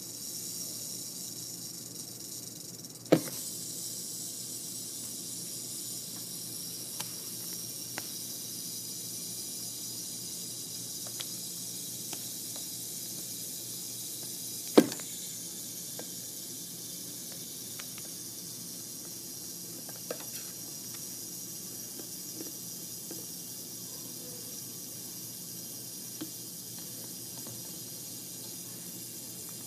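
Young rattlesnake rattling its tail: a steady, high buzz that does not let up. Two sharp knocks stand out, about three seconds in and about halfway through, with a few fainter clicks between.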